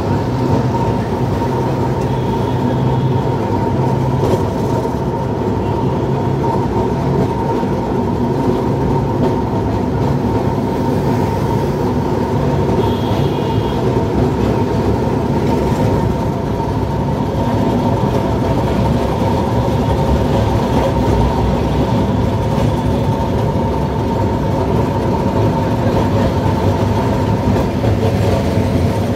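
Kolkata tram running on street track, heard from on board: a steady rumble of the wheels on the rails with a constant whine over it.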